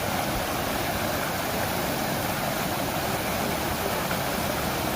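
Steady rushing of a waterfall and the stream below it, an even, unbroken wash of water noise.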